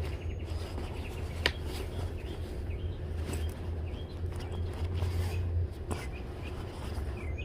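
Birds chirping faintly and intermittently over a steady low hum, with two sharp clicks, one about a second and a half in and another near the six-second mark.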